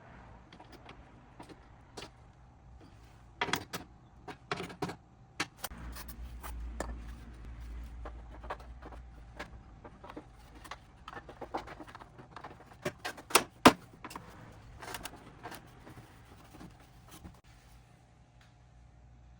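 Scattered clicks, taps and light knocks of hand work with tools and small metal parts, the sharpest click a little past the middle, with a low rumble for a few seconds before it.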